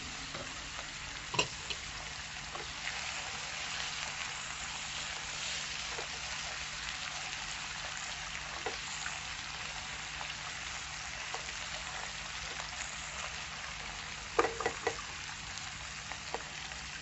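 Chopped vegetables, chanterelles, bacon and sweetcorn sizzling steadily in a nonstick frying pan as their moisture cooks off. A silicone spatula stirring the food knocks against the pan once about a second in and several times near the end.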